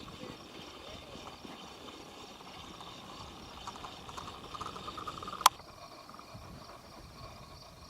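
Steady high insect chirring with some fainter chirps building up, and one sharp click about five and a half seconds in.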